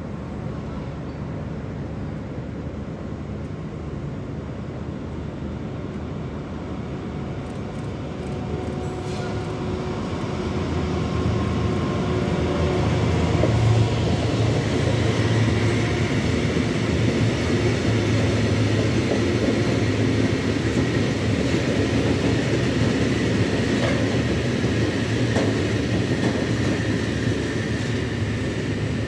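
Freight train of Fas ballast wagons rolling past on the near track, its wheels rumbling on the rails. The sound builds from about ten seconds in and stays loud as the wagons go by.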